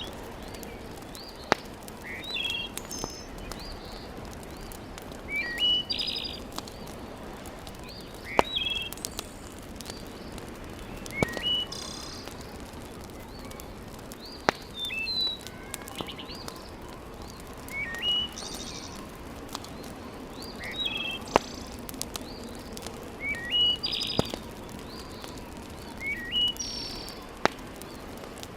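A bird repeats a short chirping phrase about every three seconds. Under it, a wood fire in a fireplace gives a steady low hiss with a sharp crackle or pop every few seconds.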